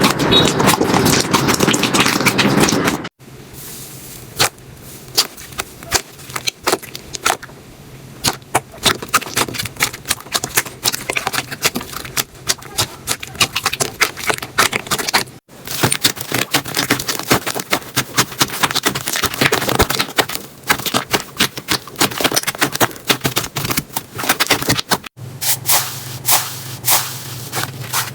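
Slime being handled and squeezed, making rapid sharp clicking and crackling pops in quick irregular runs, as in crunchy slime. The sound changes abruptly three times as one short clip cuts to the next.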